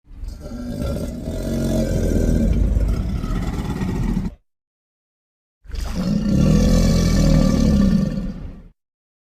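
Two low, rumbling crocodilian bellows, the first about four seconds long and the second about three, separated by a second of silence.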